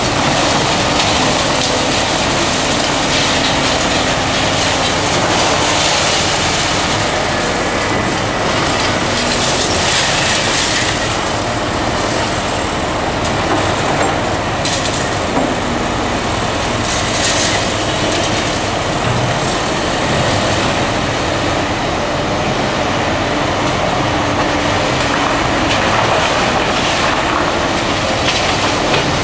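Several heavy tracked demolition excavators working at once, engines and hydraulics running under load, with crunching and clanking of broken concrete and steel rebar as the buckets dig. A thin high metallic squeal wavers over the noise, and a few sharp knocks stand out in the middle.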